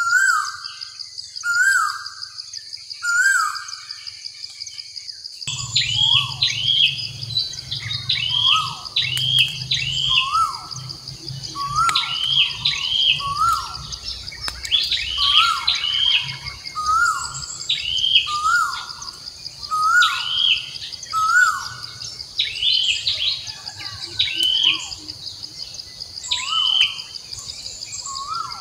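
A bird calling over and over, about one call a second: each call a quick falling note followed by higher hooked chirps. A steady high insect buzz runs underneath.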